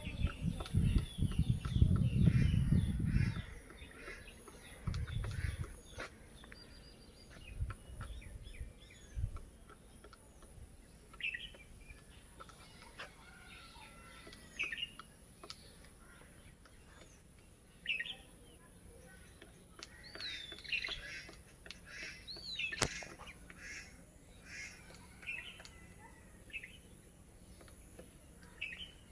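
Great slaty woodpecker excavating a nest hole in a shirish branch, heard as scattered sharp knocks, with short bird chirps every few seconds. A low rumble fills the first few seconds and returns in brief bursts, and one sharper crack comes about 23 seconds in.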